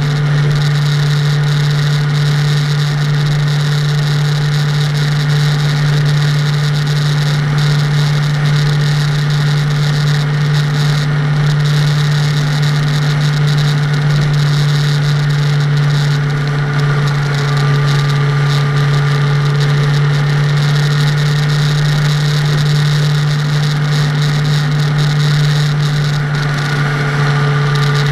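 A car driving steadily: a constant low drone under an even rush of road and wind noise, in strong wind.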